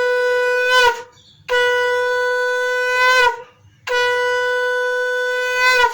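Conch shell (shankha) blown in three long blasts on one steady note, each bending up slightly just as it breaks off, as is done at the close of a Hindu puja.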